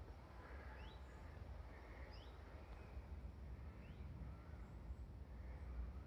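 A songbird calling faintly: three short rising chirps about a second and a half apart, over a low steady rumble.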